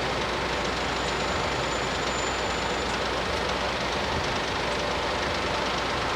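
Train running on the rails at a level crossing: a steady, even rumble and hiss of the train in motion, with a faint thin high tone for about two seconds near the start.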